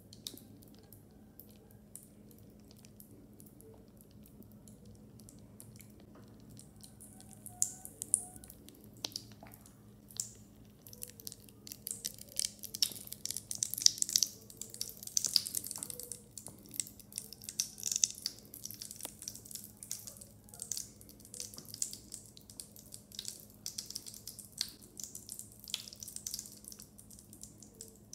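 Lush Dragon's Egg bath bomb fizzing in bath water: fine crackling and popping of bursting bubbles, sparse at first and much busier from about seven seconds in. A faint steady low hum runs underneath.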